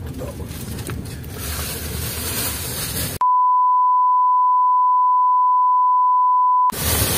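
Steady background noise, then a little over three seconds in a pure, steady 1 kHz beep replaces all other sound for about three and a half seconds and cuts off abruptly. This is an edited-in bleep tone of the kind used to censor audio.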